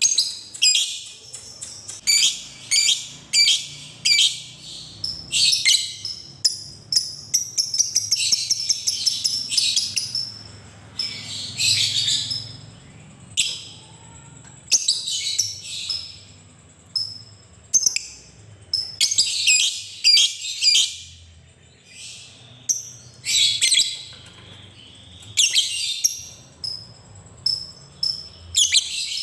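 Lovebird giving shrill, rapid chattering calls in bursts of about a second, one after another, with a longer unbroken run of chatter about seven seconds in.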